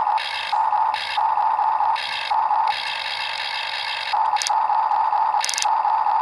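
Hydraulic pump and motor of a 1/4-scale RC excavator whining steadily as it is worked, the tone switching back and forth every half second to a second as the controls move. A few short sharp rattles come near the end.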